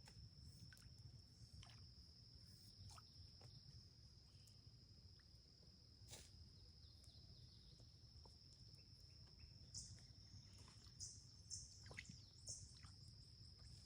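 Near silence outdoors: a steady, high-pitched insect trill, with faint scattered bird chirps.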